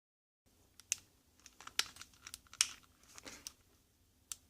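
Small sharp clicks and short scrapes of hard plastic parts being handled and pried, a car power window switch assembly being worked apart by hand; the clicks start about half a second in and come irregularly, a few loud ones among fainter ticks.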